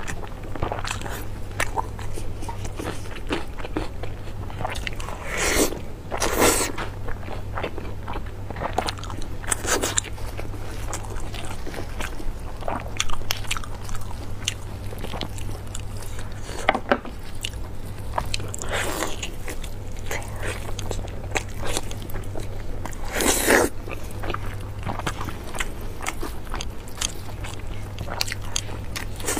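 Close-miked eating: chewing and biting into glazed braised meat, many small clicks with a few louder bites, over a steady low hum.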